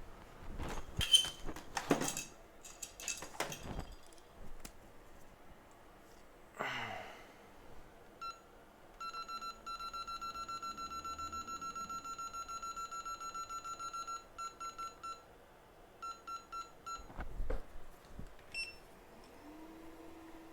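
A fast run of electronic beeps from a bench device, pulsing for several seconds with a couple of short breaks, after a few clicks and clatter of tools and parts being handled. Near the end a low hum rises in and holds steady.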